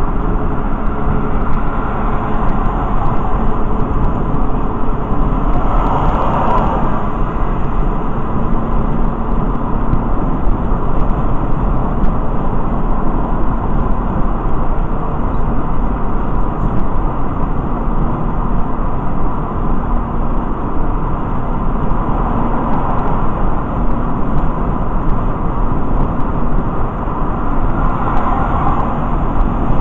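Steady road and engine noise of a car driving at highway speed, heard from inside the cabin, swelling briefly a few times.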